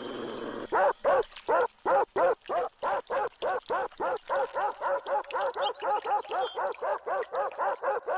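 Cartoon bulldog barking in a long, unbroken string, the barks speeding up from about two to about four a second. Short high-pitched tones sound over the barking midway and again, evenly spaced, near the end.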